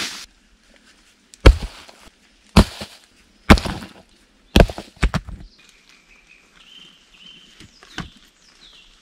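Four heavy chopping blows on wood, about a second apart, with a smaller knock near the end. A bird sings faintly through the second half.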